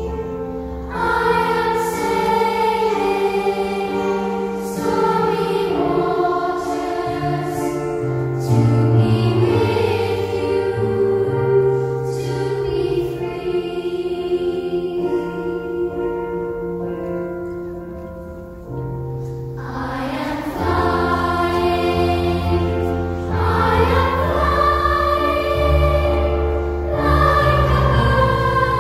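Children's choir singing a slow song. The sound eases off about two-thirds of the way through, then the voices come back in fuller.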